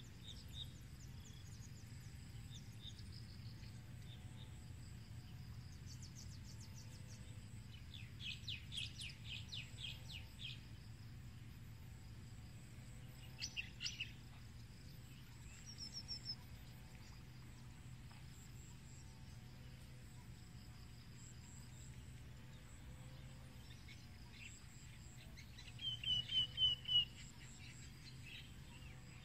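Small birds chirping in short runs of rapid notes, with a louder trill near the end, over a faint steady low hum.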